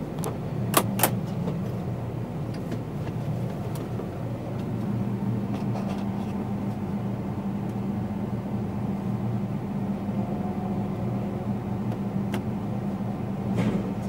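John Deere 8130 tractor's diesel engine running steadily, heard from inside the cab, its hum growing a little louder about five seconds in. Two sharp clacks about a second in.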